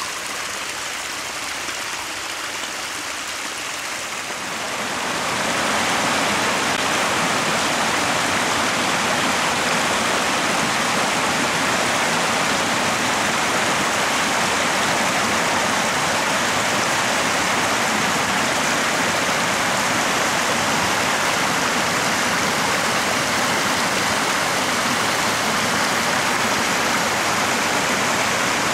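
Small brook running and splashing over stones: a steady rush of water that gets louder about five seconds in, then holds.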